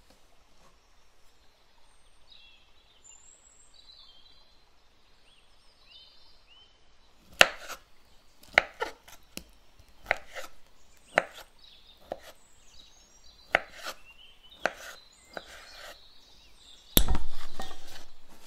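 Kitchen knife chopping kiwi fruit on a bamboo cutting board: about ten sharp knocks at irregular intervals in the second half, then a louder, longer noise that fades away near the end. Faint bird chirps in the first half.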